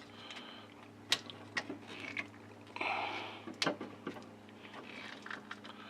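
Metal tool clicking, knocking and scraping against an old floor-mounted dimmer switch made of dry, brittle plastic caked in paint, as it is pried loose: a few sharp clicks, with a short scrape about three seconds in.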